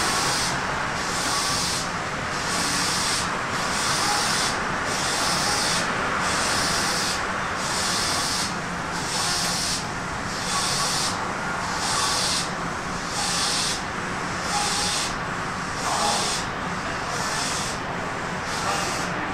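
Hokuso 7300-series commuter train standing at a station with its motors idle: a steady hiss over a faint low hum, pulsing regularly a little faster than once a second.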